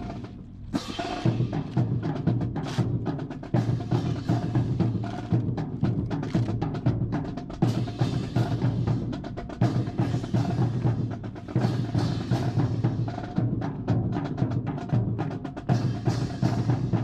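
Marching percussion, bass drum and snare, playing a steady drill cadence, with sharp wooden clacks of drill rifles being handled.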